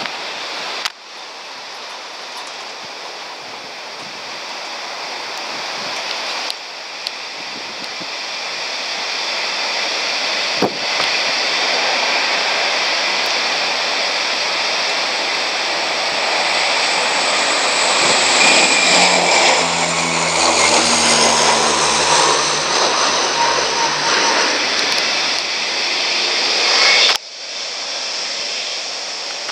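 Boeing 757's Rolls-Royce RB211 turbofan engines running as the jet taxis and turns, a loud rushing roar that grows louder, with high whining tones sliding lower in the second half. The sound breaks off abruptly a few times.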